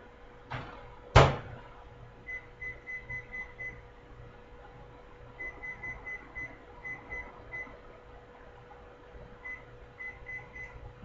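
Microwave oven door shut with a loud bang about a second in, then the keypad beeping in three quick runs of short, same-pitched tones as the reduced power level (70%) and the cook time are keyed in.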